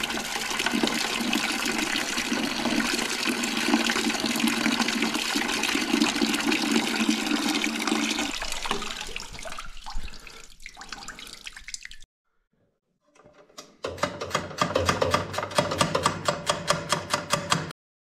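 Rusty coolant pouring in a steady stream from the Farmall 140 engine's drain into a plastic bucket, splashing, then thinning to a trickle about nine to twelve seconds in as the cooling system empties. After a break, a different steady sound with a regular ticking, a few ticks a second, follows near the end.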